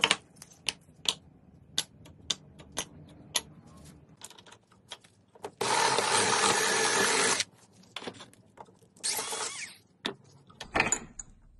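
Drill press bit cutting through a metal angle bracket, a loud steady grinding that starts and stops abruptly and lasts about two seconds. A shorter, quieter burst follows about a second and a half later. Before the drilling comes a run of sharp clicks and taps.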